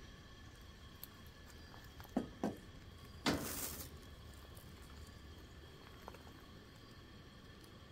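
Handling sounds at a camp stove: two light knocks, then a brief burst of plastic rustling about a second later as a plastic gallon water jug is picked up.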